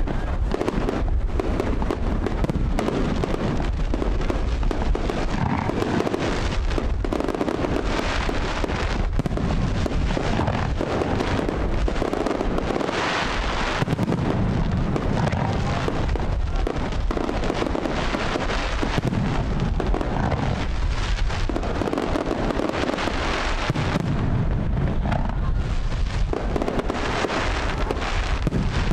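Fireworks display: aerial shells bursting one after another in a dense, unbroken barrage of booms and bangs.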